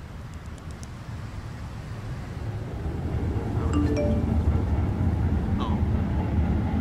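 Low rumble of road traffic growing steadily louder, with a short chime of a few notes about four seconds in.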